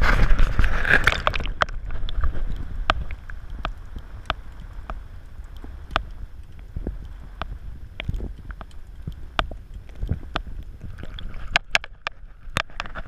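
Water rushing and sloshing around an action camera as it goes under the sea surface, loudest in the first second and a half. Then a low wash of water with sharp clicks at a fairly even pace, about three every two seconds.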